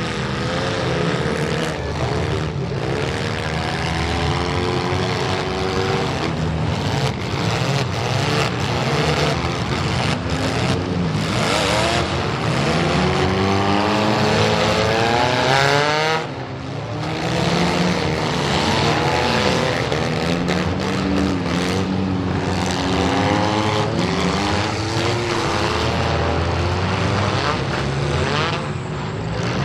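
Several gutted front-wheel-drive demolition derby cars revving hard, their engine pitches rising and falling over one another, with repeated metal crash impacts as they ram each other.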